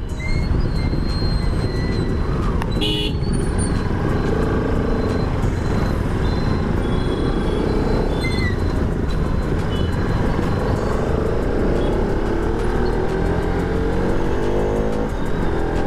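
Motorcycle riding off from a traffic signal and accelerating through city traffic, the engine note climbing in pitch toward the end, under heavy wind rumble on the microphone. Short horn toots from other traffic sound a few times.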